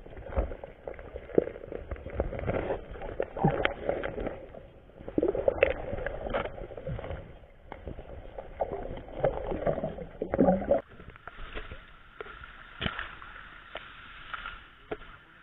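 Muffled underwater sound of a river in a strong current, heard through a submerged action camera: irregular surges of churning, bubbling water with low rumble and knocks against the camera. About eleven seconds in it changes abruptly to quieter open air with a faint steady high hum.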